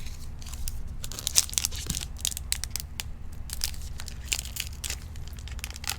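Trading cards and foil pack wrappers being handled: crinkling and tearing with many short, sharp rustles.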